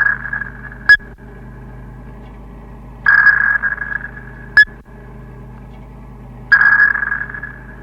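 Submarine sonar sound effect: a ping about every three and a half seconds, each a high tone that fades out, followed about a second and a half later by a short sharp blip, over a steady low hum.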